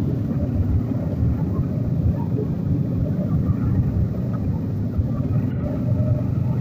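Bajaj motorcycle running at road speed among a group of motorcycles, heard from the rider's seat as a steady low rumble.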